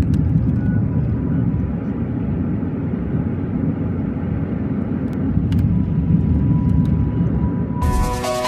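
Car driving, heard from inside the cabin: a steady low rumble of engine and road noise with a few faint clicks. Music starts near the end.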